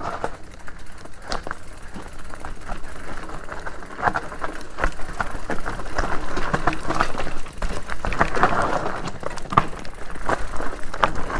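Specialized Turbo Levo SL e-mountain bike riding down a steep, rough trail: tyres rumbling over rock and roots with many irregular knocks and rattles from the bike, coming thicker from about four seconds in.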